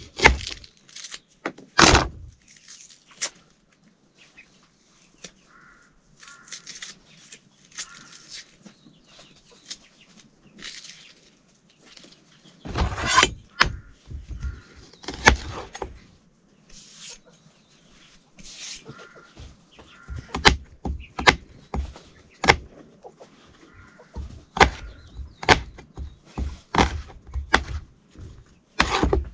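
Soft short clucking of chickens in the quieter stretches, amid irregular sharp knocks and slaps that come thickest in the last ten seconds.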